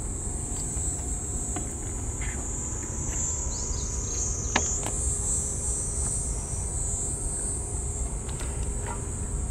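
Insects droning steadily in a continuous high buzz, over a low rumble, with a few faint clicks.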